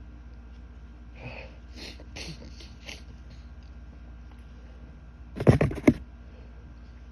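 A person sniffing a few times through an irritated, allergic nose, then one loud sneeze about five and a half seconds in.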